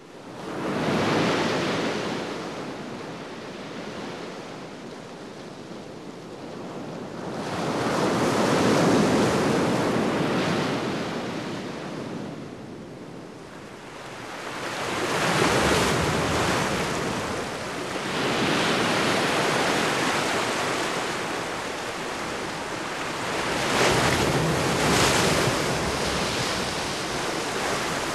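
Heavy sea surf: waves breaking and washing in, the noise swelling and falling away in slow surges several seconds apart.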